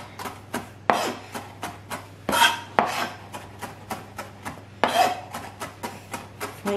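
Chef's knife chopping fresh parsley fine on a plastic chopping board: a steady run of quick blade strikes, about three or four a second, with a few louder knocks.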